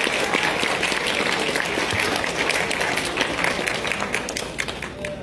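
Audience applauding, the clapping slowly dying down near the end.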